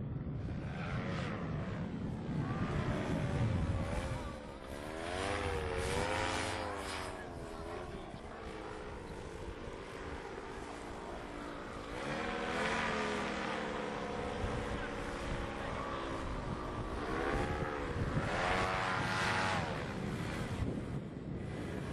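Paramotor engine and propeller running, its pitch rising and falling several times as the throttle or the distance changes, with a rumble of wind underneath.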